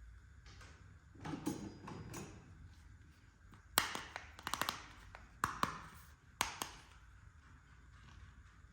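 Small plastic toy kitchen pieces being handled: a soft rustle, then a handful of sharp clicks and taps as parts knock together and are set down.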